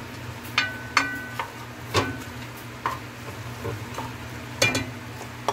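A spatula stirring cauliflower rice with peas and diced carrots in a metal pot. It makes irregular scrapes and knocks against the pot, about one every second. A couple of the strokes near the start leave the metal ringing briefly.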